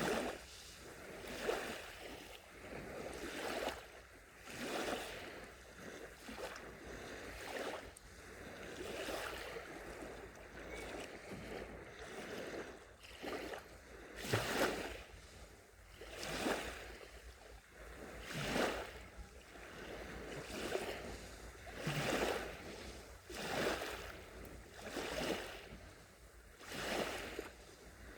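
Small, gentle sea waves lapping and washing onto the shore, a fresh hissing wash swelling and falling away every second or two.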